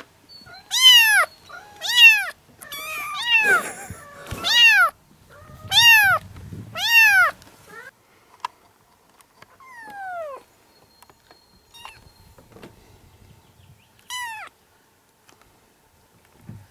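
Young kittens meowing: a quick run of about eight high-pitched calls, each rising then falling, over the first half. After that come only a couple of scattered meows, one a long falling call.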